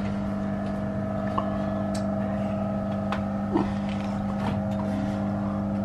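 Electric patient hoist motor humming steadily as it lifts a child in a sling out of a wheelchair, then cutting off suddenly near the end, with a few faint clicks.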